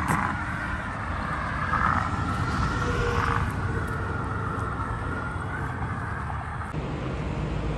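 Road traffic on a highway, with a vehicle going past about two to three seconds in, over a steady low rumble.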